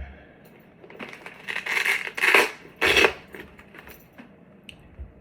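Foam-and-fabric helmet cheek pads being pulled out of a motorcycle helmet: rustling and scraping noises. There are a few bursts, the loudest about two seconds in and a shorter one about three seconds in.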